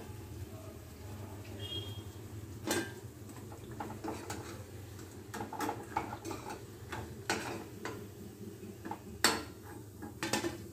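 A slotted steel spoon clinks and knocks against a kadhai and a steel plate as fried bread pakoras are lifted out of the oil. The knocks come singly, about a second or so apart, over a steady low hum.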